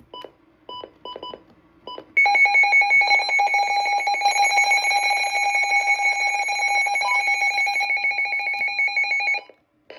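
Midland weather alert radio going through an alert test. A few short beeps come first, then about two seconds in its alert alarm starts: a loud, rapidly pulsing multi-tone alarm that runs about seven seconds and cuts off suddenly.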